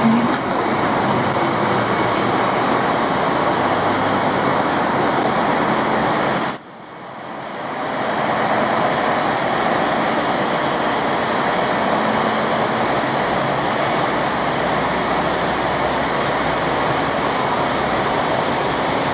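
Steady diesel train noise under a station roof, a rumble with hiss. It cuts off abruptly about six and a half seconds in and fades back up. After that, a red 'tarako' KiHa 40 diesel railcar runs along the platform and away.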